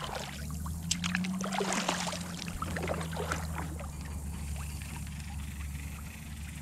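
Small clicks and knocks of gear in a plastic fishing kayak with a light trickle of water, busiest in the first few seconds, over a low steady hum.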